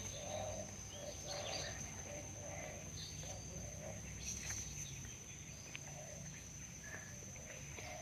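A steady, high-pitched insect drone, with short, low animal calls repeating irregularly every half second to a second.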